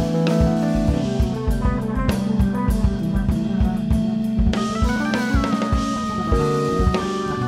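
Jazz trio playing: a drum kit with busy kick and snare strokes, electric bass guitar and keyboards. About halfway through, a held high keyboard line with small pitch bends comes in over the groove.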